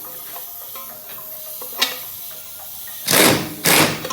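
A pneumatic wrench driving a swivel socket in two short bursts, about half a second each, near the end, spinning the 17 mm upper ball joint nut loose; a single light click comes a little before.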